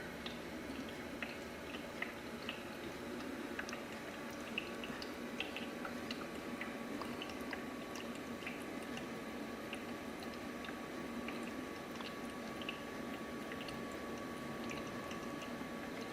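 Small ultrasonic humidifier (aroma diffuser) running: a steady low hiss with frequent tiny watery pops and ticks scattered throughout.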